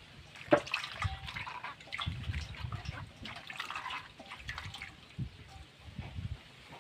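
Water sloshing and splashing in a shallow steel bowl as hands rub and rinse a peeled banana flower core, in uneven spells, with a single sharp knock about half a second in.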